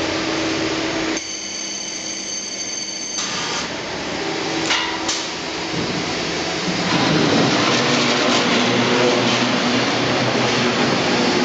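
CNC automatic steel mesh welding line running: dense machine noise with sharp metallic knocks from the wire feed and welding stations. A high steady whine sounds for about two seconds near the start, and the machine noise grows louder about seven seconds in.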